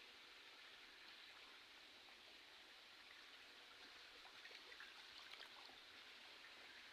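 Faint, steady rush of a shallow river flowing, with a few faint ticks about four to five seconds in.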